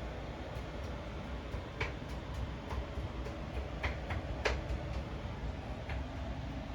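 Irregular small clicks and taps over a steady low hum, the sound of a Panasonic SX5 Walkman cassette player being handled. The loudest click comes about four and a half seconds in.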